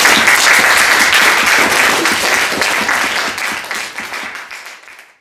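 Audience applauding, dense clapping that dies away over the last couple of seconds.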